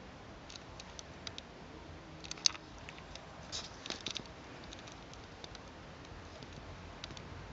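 A few scattered light clicks and taps close to the microphone. One sharp click comes about two and a half seconds in, and a small cluster follows around four seconds.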